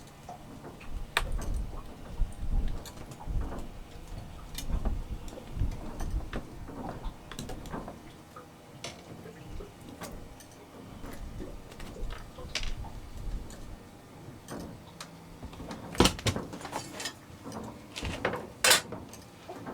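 Irregular knocks and clicks aboard a small fishing boat, with two sharper, louder knocks near the end and a low rumble in the first half.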